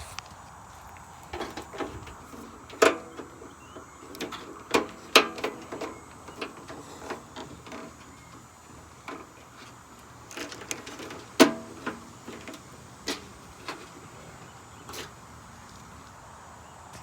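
Irregular knocks and clanks of parts being handled and set down, a few of them ringing briefly like struck sheet metal.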